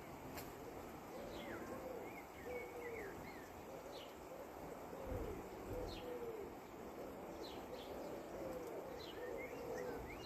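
Birds calling: a steady run of short, low cooing notes, each rising and falling, about one or two a second. Thin higher chirps are mixed in.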